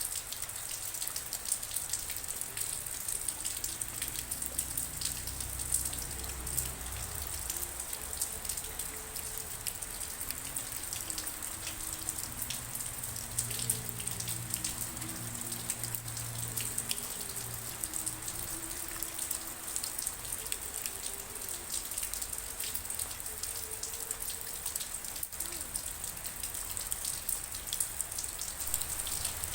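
Steady rain, a dense patter of raindrops hitting a surface. Through the middle, faint low held tones sound underneath the rain.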